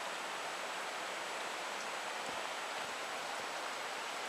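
Steady rushing of a river's rapids, an even hiss of water that neither rises nor falls.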